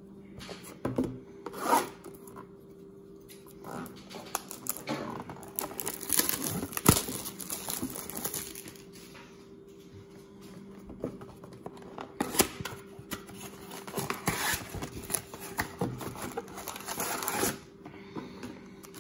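A trading-card blaster box being unwrapped and opened by hand, with its plastic wrap and cardboard tearing and crinkling in irregular bursts of rustling, and foil card packs handled. There is a sharp snap about seven seconds in, and a faint steady hum underneath.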